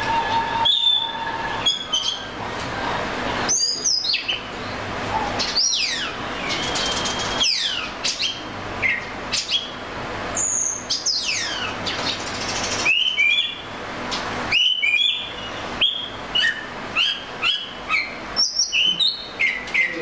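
Oriental magpie robin singing: a varied run of clear whistles, with long falling slurred notes in the first half giving way to quick short notes that jump between pitches, over a faint steady hiss.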